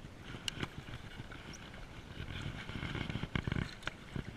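Water splashing and sloshing around an inflatable pontoon float tube as the angler's finned feet kick, with a quick cluster of knocks and clacks from gear being handled about three and a half seconds in.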